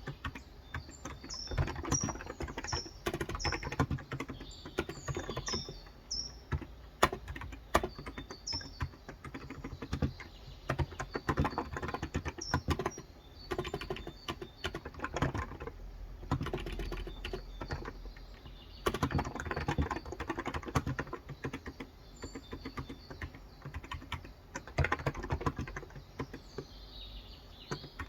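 Fast typing in bursts with short pauses on a Cox Endeavor electrostatic capacitive keyboard with light 35 g switches. A bird chirps repeatedly in the first few seconds and again near the end.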